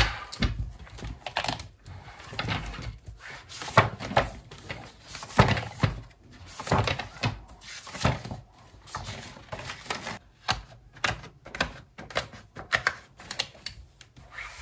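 Paper rustling and pages turning as a disc-bound notebook and loose printed sheets are handled, with irregular soft clicks and taps all through.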